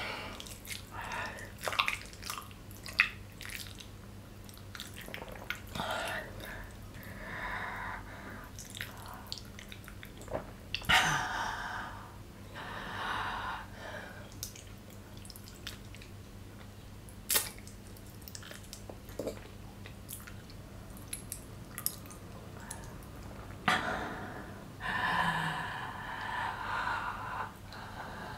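Close-miked mouth eating sounds from chewing a gyoza dumpling: wet clicks and lip smacks scattered throughout. A few longer hissy breaths through the mouth come in between, the longest near the end.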